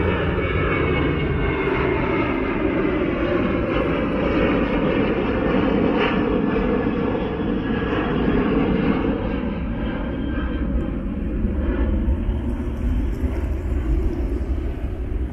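Jet airliner climbing out overhead after takeoff, its engines running with a loud, steady roar whose tone slowly shifts as it passes over, easing slightly in the second half.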